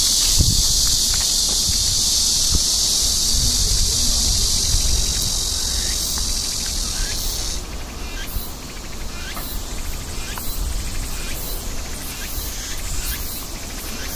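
Insects calling: a dense, steady high-pitched insect drone that cuts off suddenly about seven and a half seconds in. It is followed by high insect chirps pulsing about twice a second, over a low rumble.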